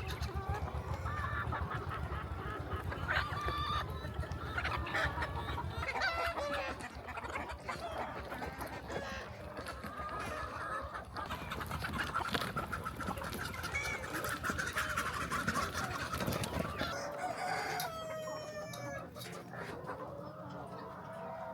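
A large flock of chickens clucking and calling all together, with roosters crowing among them.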